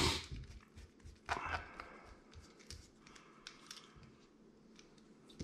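Faint small clicks and scrapes of a micro Phillips screwdriver and a plastic key fob being handled while its tiny case screw is taken out, with scratchy rustles at the start and about a second and a half in.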